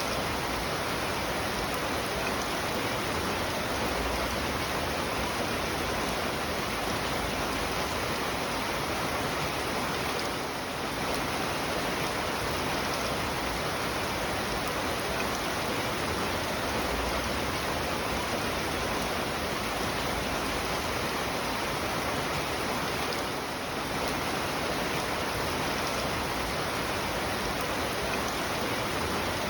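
Steady rain falling, a dense, even hiss of water that eases very slightly twice.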